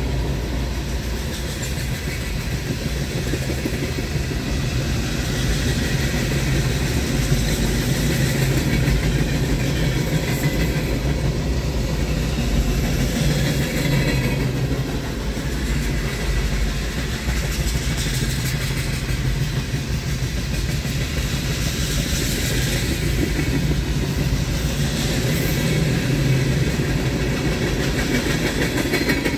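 Diesel freight locomotive engine running steadily at an even, constant level.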